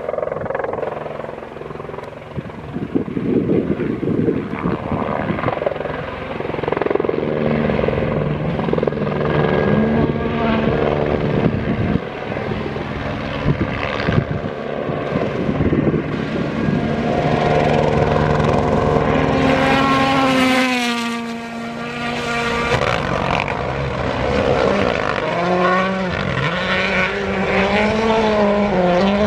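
Ford Puma Rally1 hybrid rally car's turbocharged four-cylinder engine revving hard, rising and falling through gear changes as it approaches. It passes close about twenty seconds in with a sharp drop in pitch, then keeps revving up and down as it pulls away.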